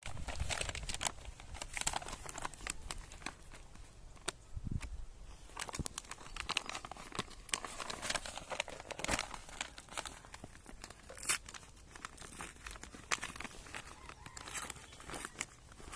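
Delivery packaging being torn open and crinkled by hand: irregular crackling, rustling and tearing with sharp clicks throughout.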